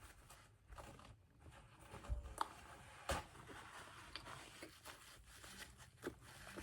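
Faint chewing and crunching of a McDonald's apple pie's pastry crust as it is eaten, with scattered sharp crackles, the loudest about three seconds in.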